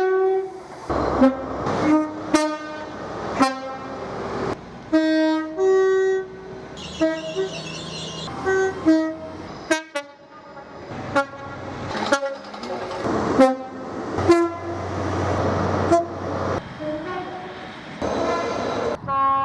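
A rapid series of British train horns from different trains, edited together with sudden cuts. Most are short blasts, many of them two-tone. A passing train's running noise rises about two-thirds through, and a brief high-pitched squeal sounds near the end.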